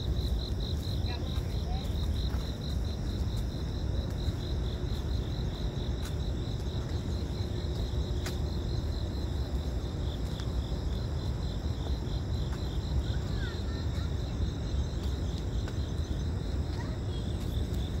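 Insects chirping in a fast, evenly pulsing high trill, over a steady low rumble.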